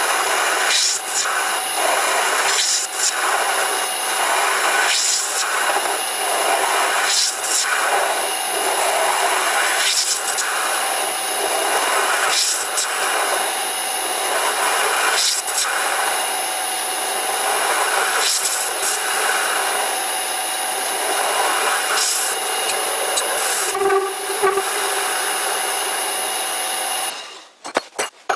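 Vintage Karger metal lathe running under its new frequency drive while a carbide tool turns a small steel part, a steady machine noise with a high whine and irregular scrapes as chips come off. The spindle stops about 27 seconds in, leaving a few light clicks.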